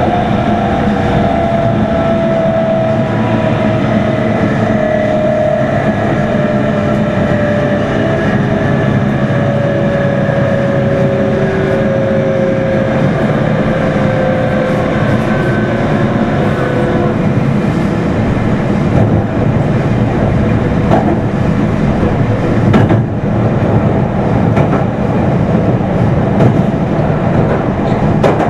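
Meitetsu 3100-series electric train heard from inside motor car Mo 3212: the traction motor and inverter whine falls steadily in pitch as the train slows under braking, then dies away, leaving the rumble of wheels on rail with a few clacks over rail joints.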